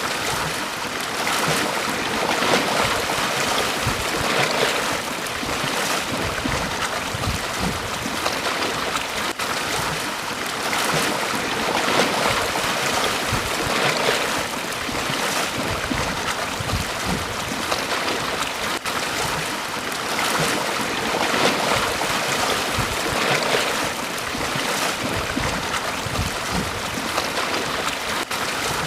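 Small waves washing onto a beach, a steady rush of surf swelling and easing every couple of seconds.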